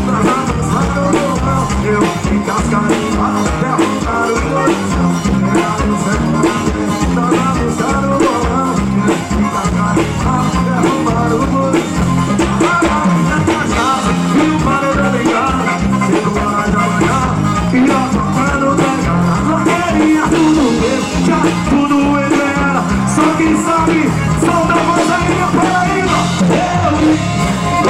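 Live forró music: a band playing with a steady beat, with singing over it.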